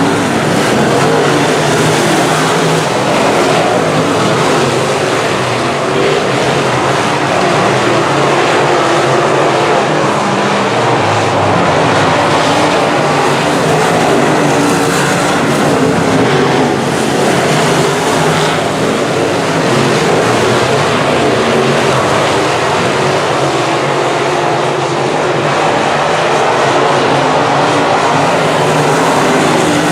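A field of semi late model race cars running laps together: several engines at racing speed blend into one steady, unbroken din.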